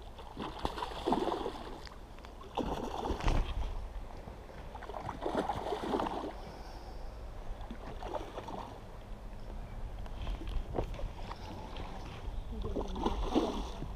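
A hooked steelhead thrashing and splashing at the surface during the fight, several irregular splashes, over a steady low rumble of moving water.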